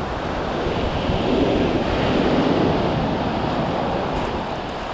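Small sea waves breaking and washing up a shingle beach, the wash swelling to a peak about a second and a half in and then slowly easing off. Wind rumbles on the microphone underneath.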